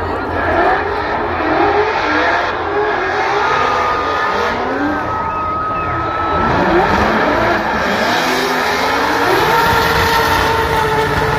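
Drift cars' engines revving hard as the cars slide past, the revs sweeping up and down over and over.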